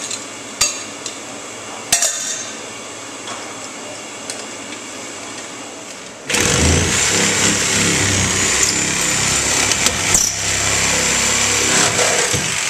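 A few metal clinks from a wrench on a drain pipe fitting. About six seconds in, a handheld corded power saw starts suddenly and runs steadily, cutting into the wall to reach the drain line.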